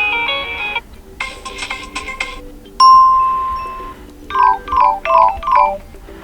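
Built-in ringtones of a ZTE Blade V50 smartphone, previewed one after another through its speaker, each cut off after a second or so. First a quick run of bright mallet-like notes, then a fuller passage, then a single loud tone that fades away, and near the end four quick chiming notes.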